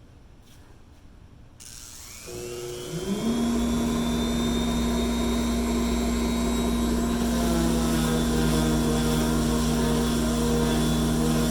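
An electric sander switches on about a second and a half in, its whine rising, and about a second later the automatically triggered cyclone dust collector starts up. Its blower climbs to a loud steady hum with a low rumble as it pulls air down through the sanding table.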